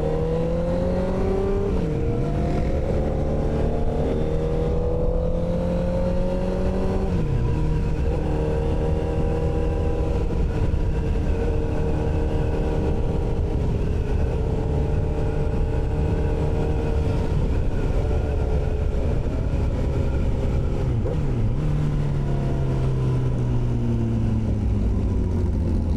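Motorcycle engine accelerating through the gears, its pitch rising and then dropping at two upshifts in the first several seconds, then running at a steady cruise with a brief dip about three quarters of the way through. Wind noise rumbles on the microphone throughout.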